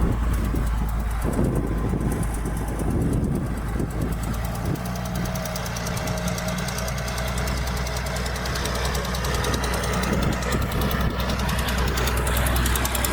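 Diesel engine of heavy earthmoving machinery running, a continuous low drone that sounds rougher for the first few seconds and steadies after about four seconds.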